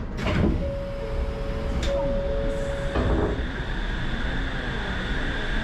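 Suspended monorail car running on its rubber tyres, heard from on board: a steady low rumble with electric motor whine. A held mid tone stops about three seconds in, a short knock sounds, and a higher steady whine takes over.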